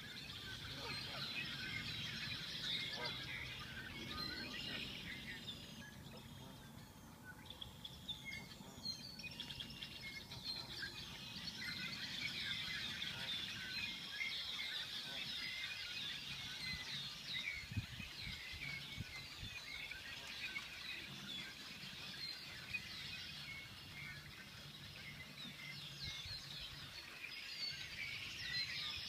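Chorus of many red-winged blackbirds calling and singing at once, short chirps and whistles overlapping continuously. The chorus thins for a moment about seven seconds in, over a low steady rumble.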